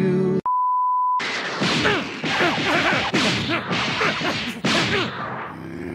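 A steady beep tone of about 1 kHz, held for under a second about half a second in, then a rapid flurry of anime fight sound effects: punch impacts and whooshes.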